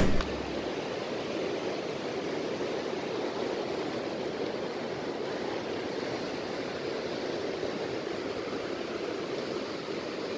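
Steady rush of ocean surf washing against a rocky shore.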